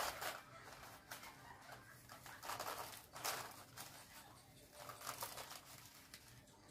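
Faint, irregular rustling and scraping of a plastic scraper card scooping loose chocolate shavings and pressing them onto the whipped-cream side of a cake, in a few short bursts.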